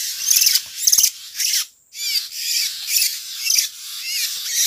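Several oriental magpie-robins, fledglings among them, calling noisily at once: dense rapid chatter mixed with short sweeping chirps, with a brief gap a little under two seconds in.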